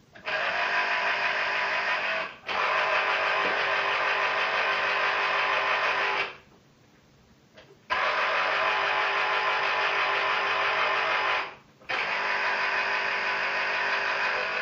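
Small electric citrus juicer's motor whirring as orange halves are pressed onto its reamer, starting and stopping as the fruit is pressed down and lifted. It runs in long stretches of several seconds, halting briefly twice and for about a second and a half near the middle.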